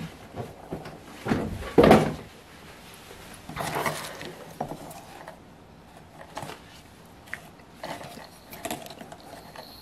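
Handling noises as a model airplane engine with a wooden propeller is lifted out of a cardboard box: crumpled packing paper and bubble wrap rustle and the engine knocks against things, loudest about two and four seconds in, followed by scattered light clicks and taps as it is handled and fitted with fuel tubing.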